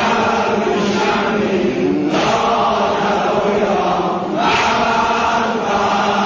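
Men's voices chanting together in a Shia mourning lament (maddahi), sung in phrases that restart about every two seconds.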